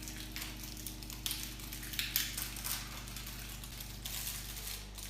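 A paintbrush scrubbing and dabbing on a dry plaster volcano model: irregular short scratchy strokes, over quiet background music with soft sustained notes.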